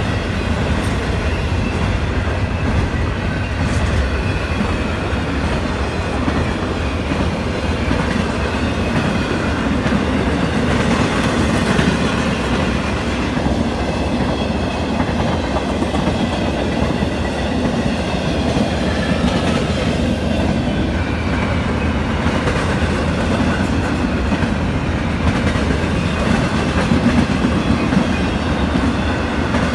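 CSX double-stack intermodal freight train rolling past close by: a steady, loud rumble of wagons and wheels on the rails that does not let up.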